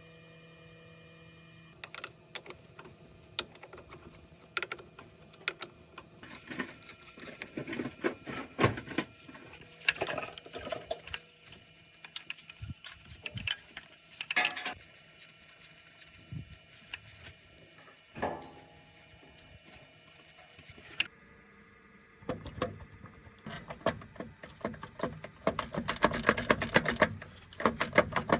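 Irregular metallic clinks and knocks of hand tools and parts being handled, turning into a dense rattling run of quick clicks for the last few seconds.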